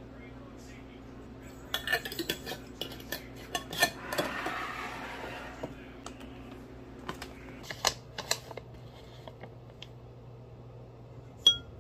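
Metal spoon clinking and scraping against a glass jar and a ceramic cup while powder is spooned out and stirred: scattered light clinks, a short scraping rustle about four seconds in, and one sharp ringing clink near the end.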